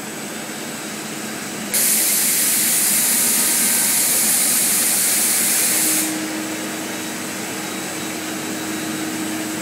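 A running stretch film cast line hums steadily in a factory hall. About two seconds in, a loud hiss starts suddenly and cuts off abruptly about four seconds later, and a faint steady tone then holds for the rest of the time.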